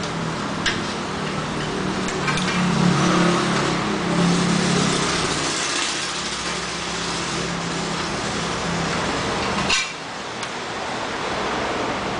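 Metal parts and hand tools clinking and knocking now and then while a motorcycle gas tank is fitted onto the frame, over a steady mechanical hum that drops away about ten seconds in.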